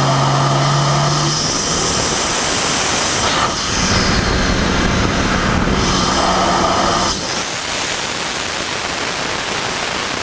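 BMW N54 twin-turbo inline-six running under load, heard from inside the engine bay: a loud intake rush and hiss over the engine's hum. The sound shifts briefly about three and a half seconds in, then drops in level about seven seconds in, leaving a steady rushing hiss.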